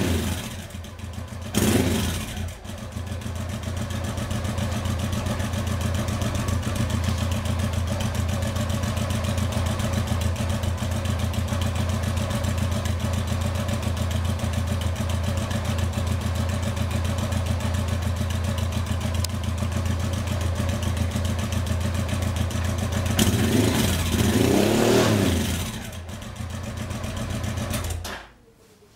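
Honda XRV750 Africa Twin's V-twin running through a stainless oval silencer from a BMW R 1150 GS with the dB-killer fitted. It gives a quick rev just after the start, then idles steadily. Late on it revs up and back down, settles, and is switched off shortly before the end.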